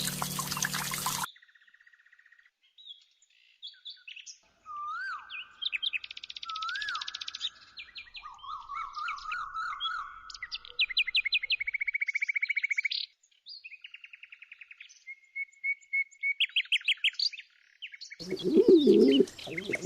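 Music cuts off about a second in, followed by a string of different songbird calls one after another: short chirps, rising whistles and rapid trills. Near the end a dove begins cooing, louder and lower than the songbirds.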